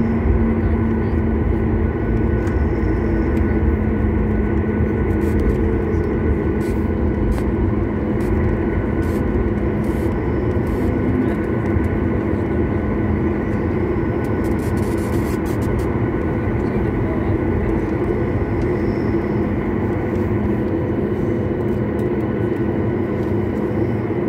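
Inside the cabin of a SpiceJet Boeing 737 taxiing on a wet taxiway, the jet engines run low and steady, a deep rumble with a steady whine on top.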